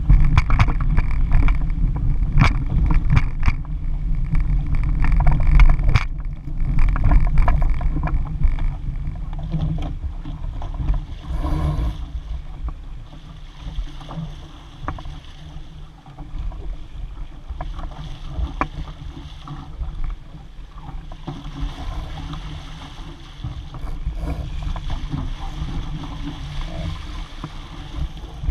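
Laser sailing dinghy moving through choppy water: wind buffeting the microphone in a steady low rumble, with water splashing and slapping against the hull. It is loudest, with many sharp splashes, over the first several seconds, then eases to a lower rush.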